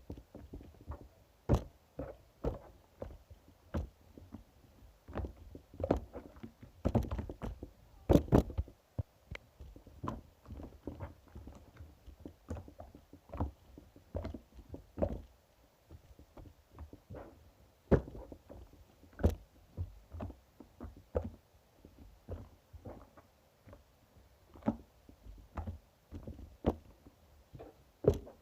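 Opaque slime being squished and pressed by hand, giving irregular sticky clicks and pops a few times a second, loudest in a cluster about seven to eight seconds in.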